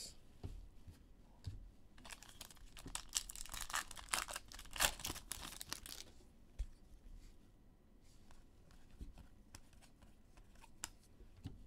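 A trading card pack's wrapper being torn open and crinkled, a dense crackle lasting a few seconds that starts about two seconds in, then scattered light clicks and rustles of the stack of football cards being handled.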